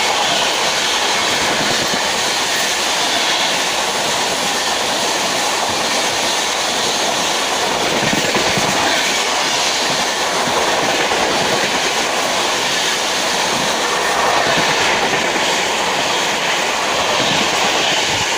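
Train running at speed close by: a steady loud rush of wheel and rail noise with the clickety-clack of wheels over rail joints.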